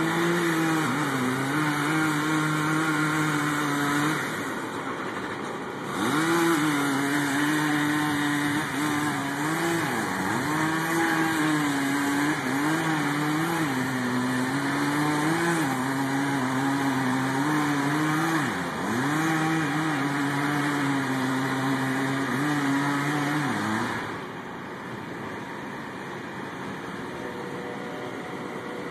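Small gasoline engine of the tree-felling equipment running hard, its pitch dipping and recovering again and again as it takes load. It eases off briefly about five seconds in and cuts out about five seconds before the end.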